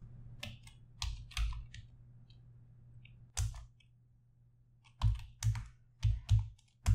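Keystrokes on a computer keyboard typing a terminal command: a few scattered key presses, a pause of a second or two, then a quicker run of presses near the end, over a faint low hum.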